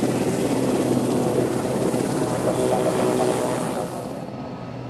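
Aircraft engine noise, a dense rushing sound with a steady hum in it, dropping in level and losing its hiss about four seconds in.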